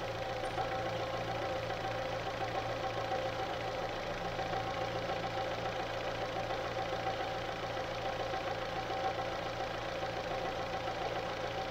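Fiat Strada engine idling steadily, with the noise from the timing-belt area that shows up once the engine has run a while, which the mechanic links to the hoses around it.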